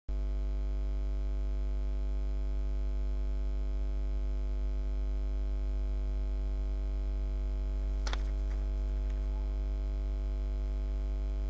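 Steady electrical mains hum, a low buzz with a ladder of overtones, at an even level throughout. About eight seconds in a short click sounds, followed by a few faint ticks.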